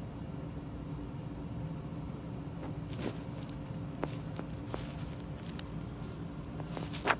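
Steady low room hum with a few brief soft rustles and ticks, the loudest just before the end.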